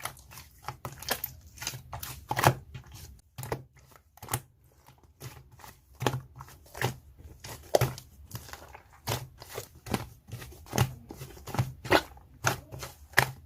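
Irregular sharp taps and clicks, with crinkling and tearing, as small things are handled close by, over a low steady hum.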